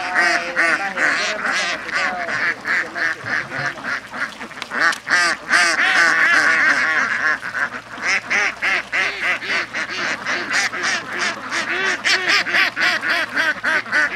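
A flock of waterfowl calling, a dense run of short, overlapping calls that never stops.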